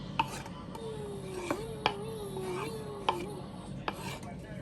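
A cooking utensil clicking against a pan about five times while garlic and onions are stirred in melted butter. A faint wavering tone runs through the middle.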